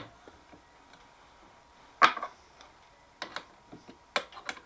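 Metal clunks and clicks of a tool holder being handled on a mini lathe's quick-change toolpost: one sharp clunk about two seconds in, then a few lighter clicks near the end.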